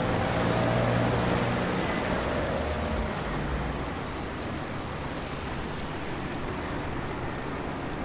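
Small sea waves washing over shoreline rocks, a steady rush of surf. A low engine hum sits under it at first and fades away over the first three seconds.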